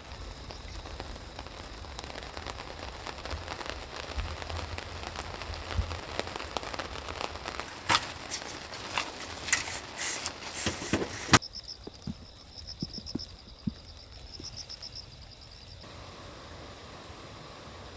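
Rain pattering and crackling on a surface, with sharper individual drop hits. About eleven seconds in it cuts to a quieter ambience with a faint, rapidly pulsing high chirr.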